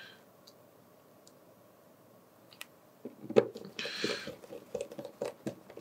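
Near silence at first, then from about halfway a scatter of small clicks and taps from a precision screwdriver and tiny screws being handled against a smartphone's opened metal-and-plastic frame, with one brief soft scrape in the middle.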